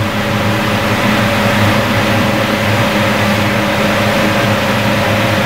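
Steady machine drone of a commercial restaurant kitchen, a continuous hum with a few held tones underneath.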